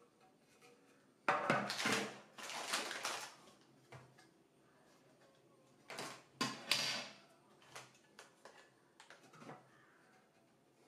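Hands handling plastic and metal electrical switch boxes among plastic-wrapped packets: two bursts of rustling and clattering, one about a second in and one about six seconds in, with small knocks between.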